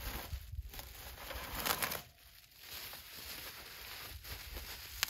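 Clear plastic bag crinkling and rustling as it is pulled off a small butane heater and crumpled up by hand. The rustle is loudest just under two seconds in, and a sharp click comes at the very end.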